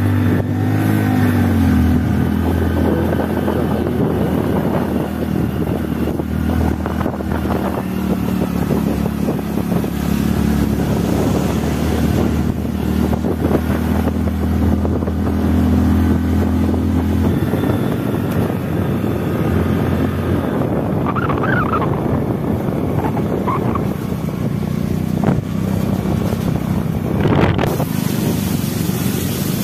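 Motorcycle engine running steadily while riding, with wind rushing over the microphone. The engine note drops and weakens about two-thirds of the way through, and there is a single knock near the end.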